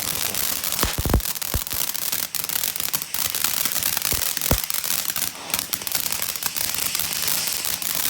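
Small crackling firework fountain burning: a dense, steady crackle of tiny pops, with a few louder single pops among them.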